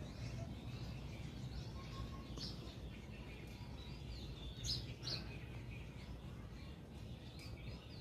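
Sparrows chirping in short, scattered chirps, one louder chirp about halfway through, over a steady low background rumble.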